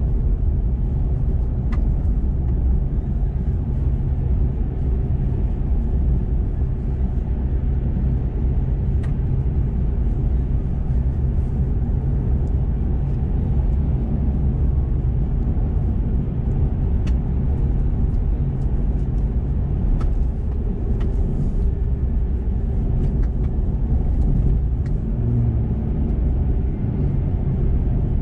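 Chevrolet Colorado Z71 pickup cruising at steady speed: a continuous low rumble of engine and tyre noise, with scattered faint ticks.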